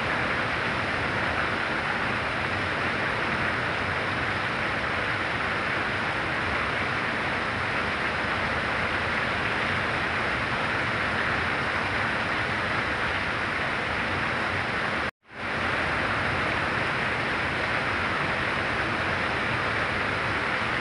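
Heavy rain falling in a steady, even hiss. About three-quarters of the way through it cuts out for an instant and fades back in.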